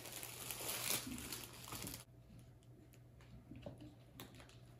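Clear plastic wrap crinkling as it is pulled off a plant pot, for about two seconds, then a few faint taps and rustles.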